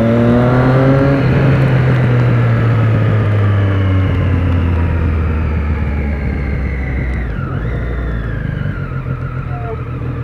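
Motorcycle engine revving up under acceleration for about the first second, then its pitch falls slowly as the throttle is rolled off. A steady hiss from the wet road runs underneath.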